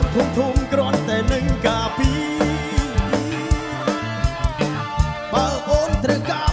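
Background music: a song with a singing voice over a steady drum beat and bass.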